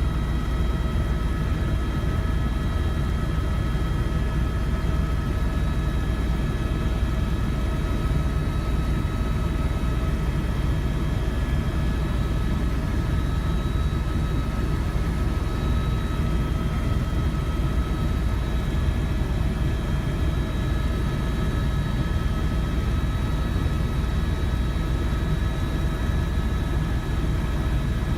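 Tour helicopter in flight, its engine and rotor running steadily: a constant low rumble with a steady high whine over it.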